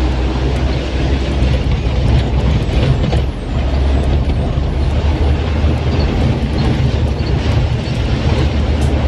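Isuzu Elf minibus diesel engine and road noise heard from inside the cabin while driving: a steady, heavy low rumble with an even hiss above it.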